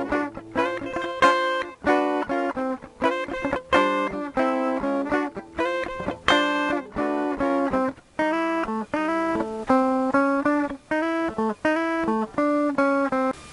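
Clean hollow-body electric guitar played through a Jazzkat amplifier: a chord-melody passage of plucked chords, about two a second, each left to ring, with a short break about eight seconds in.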